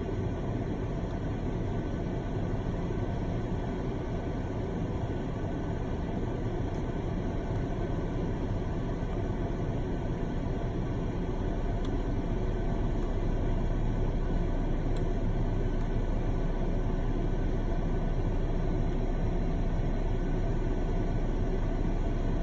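2015 Jeep Cherokee's engine idling steadily, a low even rumble heard from inside the cabin.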